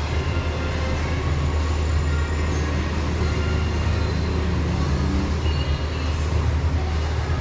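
Steady low mechanical hum in the background, unchanging throughout.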